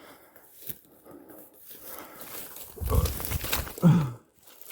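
Footsteps rustling and crackling through brush and dead wood, then about three seconds in a heavy thump followed by a short, falling grunt, as of a hiker stumbling and falling.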